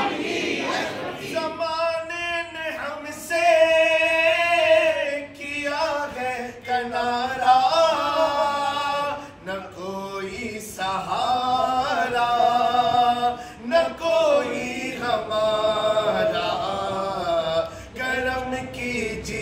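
A man singing a devotional Urdu kalaam unaccompanied, in long held, ornamented lines that bend slowly in pitch, with short breaks between phrases.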